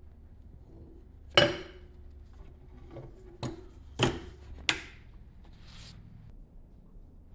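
A few sharp knocks and clanks of hard objects being handled, about five over four seconds, the first the loudest with a brief ringing tone, followed by a soft rubbing swish, over a low steady hum.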